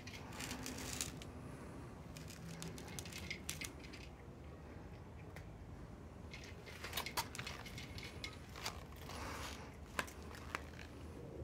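Tuxedo cat eating from a small plastic food tray: irregular bursts of crunching and clicking as it chews, with the tray clicking against the ground as the cat nudges it.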